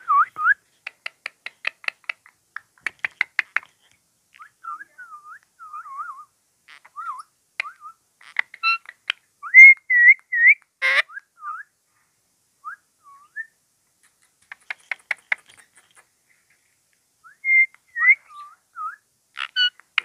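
Indian ringneck parakeet making runs of rapid clicks and short, wavering whistles and chirps, with a few louder, sharper calls near the middle.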